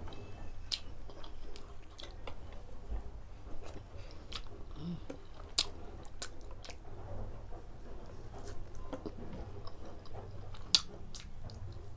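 Close-up chewing and biting of saucy grilled pork barbecue, with wet mouth sounds and scattered sharp smacks. The loudest smacks come about halfway through and near the end.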